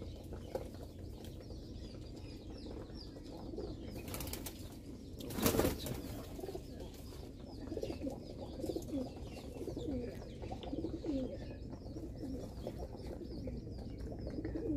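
Domestic pigeons feeding, with low cooing calls repeated through the second half and a brief loud flurry of wings about five and a half seconds in.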